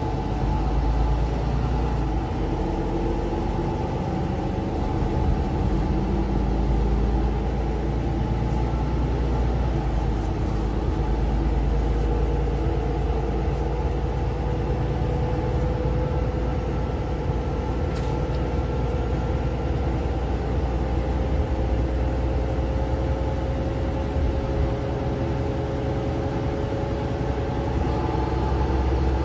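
Mercedes-Benz Citaro C2 LE city bus heard from inside the cabin while under way: a steady engine and road rumble, with a faint whine that rises slowly in pitch over the second half.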